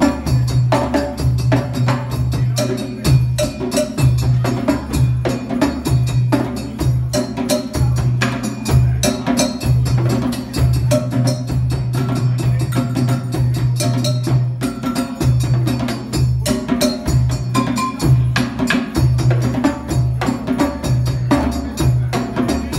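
Djembe hand drums played together in a dense, steady rhythm, with repeating deep low drum notes underneath.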